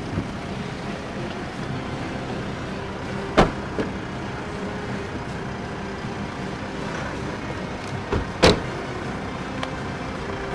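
Car doors shutting with two sharp thuds, the louder one near the end, over the steady hum of a car engine running.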